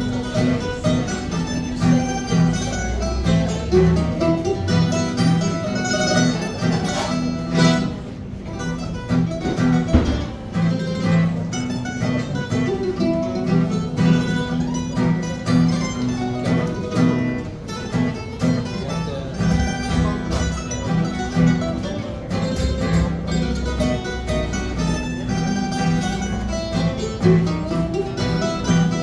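Live acoustic string trio playing a traditional Italian dance tune: two acoustic guitars strumming and picking under a mandolin.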